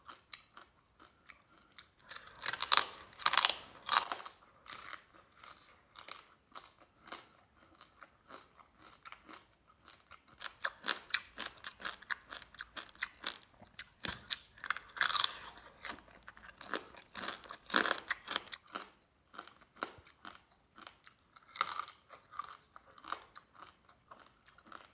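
Close-up crunching and chewing of small crabs eaten whole, their shells cracking between the teeth with a crisp crunch. The crunching comes in bursts of rapid crackles with quieter chewing between.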